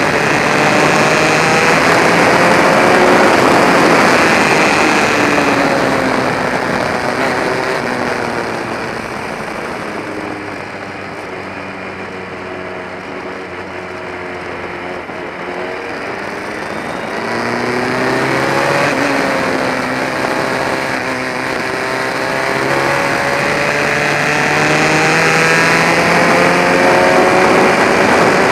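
Formula Ford racing car's engine, heard from the cockpit as the car laps. It runs hard at first, drops lower and quieter through the middle, then climbs again in pitch with gear changes toward the end.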